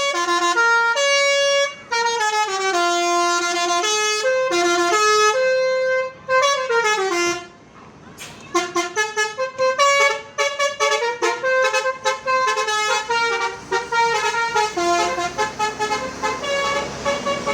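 Bus 'telolet' musical air horn (Basuri V3) playing a tune: held horn notes stepping up and down in pitch, a sliding note about six seconds in, then after a short break a fast run of short, choppy toots.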